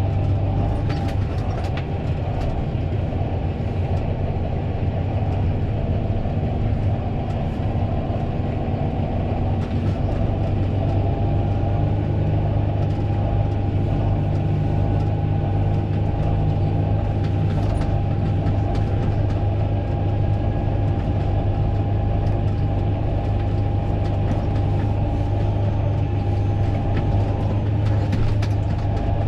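Fendt 936 Vario tractor's six-cylinder diesel running steadily: a low drone with a steady whine above it and a few light clicks.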